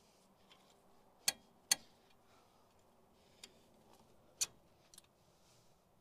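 Sharp metal clicks of front-hub parts being handled and knocked together on a Jeep axle: five separate clicks, the two loudest close together a little over a second in and another loud one past four seconds.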